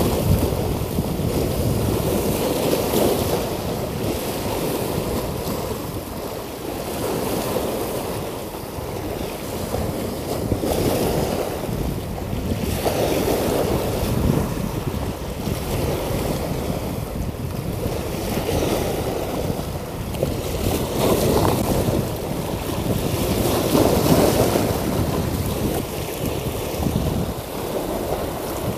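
Sea waves washing against a rocky seawall, with wind buffeting the microphone. The noise swells and ebbs every few seconds.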